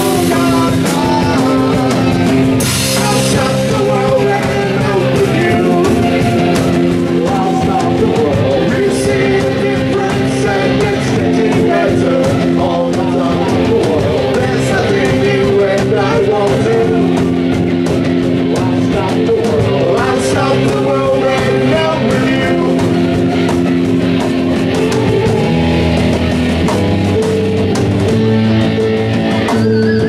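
Live rock band playing, with electric guitar, keyboards and drum kit, and a singer on vocals.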